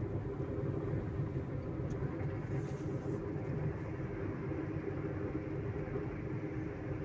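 Steady road and engine noise of a car driving along, heard from inside the cabin.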